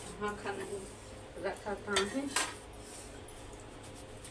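Steel utensils and plates clinking and knocking, with a few sharp clinks about one and a half to two and a half seconds in.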